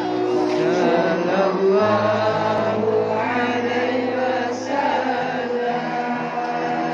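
Islamic devotional chanting: a melodic voice holding long, wavering notes over a steady low drone.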